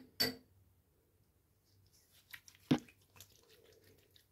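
Hands rubbing together with faint wet squishing and small clicks, with two sharp taps right at the start and another about two-thirds of the way in.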